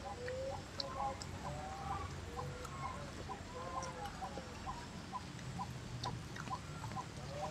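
Chickens clucking, with short arching calls and a short chirp repeating about twice a second.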